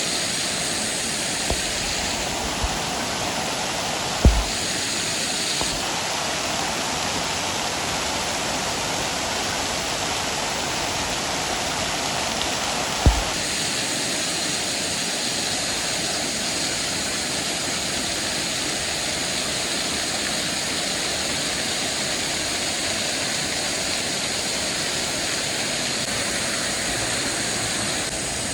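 Waterfall rushing steadily, a loud even noise of falling water, with two short thumps about four and thirteen seconds in.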